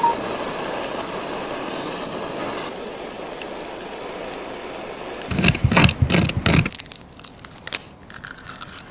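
Kitchen food sounds: a steady hiss for about five seconds, then a second and a half of loud crunching. After that comes lighter crackling as the papery skin of a garlic clove is peeled.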